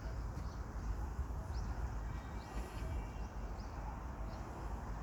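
Wind rumbling on the microphone, with a few short, high bird chirps, one about a second and a half in and another a few seconds in.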